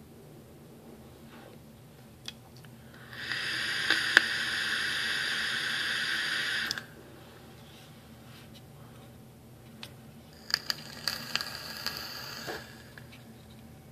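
Smok GCT vape tank drawn on: a steady airflow hiss for about three and a half seconds. A few seconds later comes a second, shorter and fainter hiss with a scatter of small pops and crackles.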